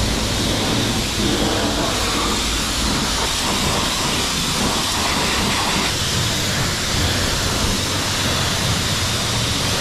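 High-pressure rinse wand at a self-serve car wash spraying water onto a car's wheel, wheel well and front bumper: a steady, loud hiss of spray.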